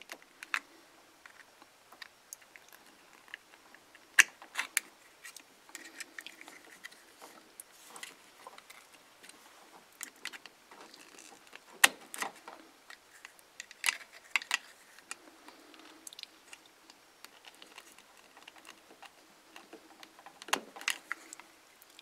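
Small irregular clicks and taps of wires being pushed down into the tight push-in connectors of a self-contained mobile-home light switch with a screwdriver, plastic switch body handled in the fingers. A few clicks stand out louder than the rest.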